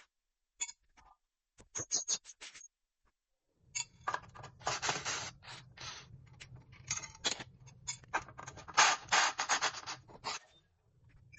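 Rubbing and scraping with scattered clicks from hands-on work taking down an electrical box, sparse at first and growing dense about three and a half seconds in over a low steady hum, then stopping shortly before the end.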